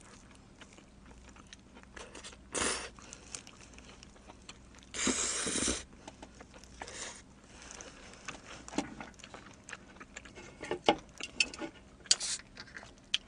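Close-miked chewing and biting of pizza, with small mouth clicks and a few louder noisy bursts, the longest about five seconds in.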